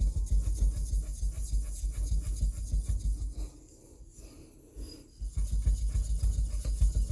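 A wet 8000-grit whetstone being rubbed back and forth on a coarse diamond plate to flatten (lap) it, in quick gritty strokes. The rubbing stops for about two seconds midway, then picks up again at the same pace.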